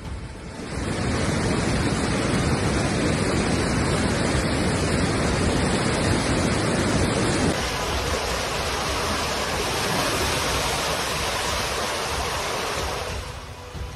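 Fast-flowing floodwater rushing, a steady, full, noisy rush of a swollen river in spate. About halfway through it changes abruptly to a thinner, hissier rush of water.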